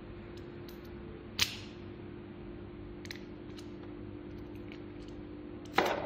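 Metal clicks of a freshly cut Honda HON66 key working in a lock cylinder: a sharp click about a second and a half in, a few faint ticks, then a louder click near the end. A steady low hum runs underneath.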